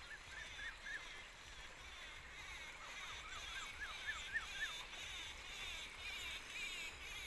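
Birds chirping softly in an evening chorus, with a run of repeated rising-and-falling chirps a few seconds in.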